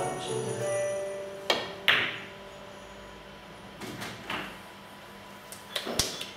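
Snooker shot on the black: the cue tip strikes the cue ball, then a second sharp click comes a fraction of a second later as the cue ball hits the black. Softer knocks follow a couple of seconds later, and another sharp knock comes near the end. Background music fades out at the start.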